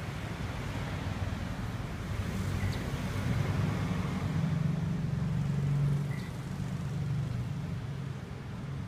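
Steady low rumble of road traffic, swelling to its loudest in the middle and easing off about six seconds in, with two short high chirps.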